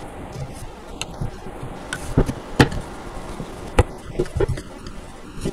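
A handful of light knocks and clicks as wooden doll high chair parts are handled and fitted together: the side panel is seated onto the dowels and screws are set into their holes by hand.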